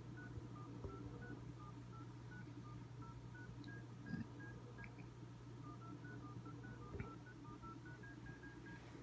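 Faint run of short telephone tones from the handset of a Western Electric 1D2 payphone on a home PBX line, stepping among a few pitches about four times a second, with a pause in the middle. A steady low hum runs underneath, and there are a couple of soft knocks.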